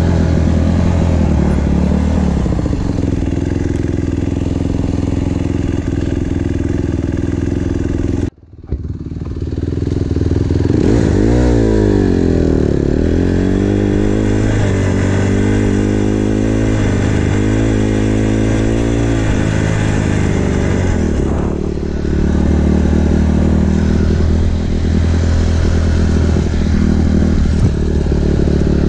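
Dirt bike engine running while riding. The sound drops out briefly about eight seconds in, then the engine pitch rises and falls repeatedly with the throttle before settling back to a steady note about 20 seconds in.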